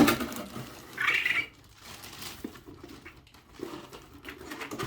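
Unboxing handling noises: a sharp knock at the start as a plastic fitting is set down, a short rustle of packaging about a second in, then quieter small clicks and rustles.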